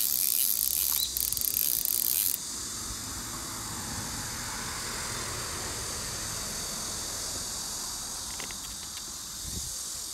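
Loud, high-pitched insect buzzing that cuts off abruptly about two seconds in, over a steady shrill chorus of insects.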